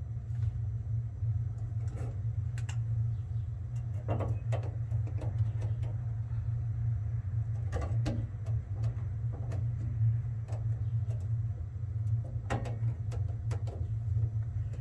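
A steady low hum throughout, with a few light knocks and scrapes scattered through it from a metal bracket being held and marked by hand against a car's firewall.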